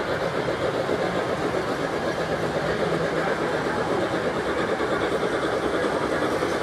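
A model freight train running on a layout's track: a steady rolling, rattling noise of wheels on rail that does not change when the caboose passes out of sight.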